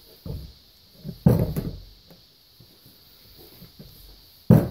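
Cast-iron cylinder head of a John Deere 3 HP hit-miss engine being handled and turned over on a workbench: a few sharp knocks and clunks of metal against the bench, the loudest about a second in and another heavy one near the end as it is set down.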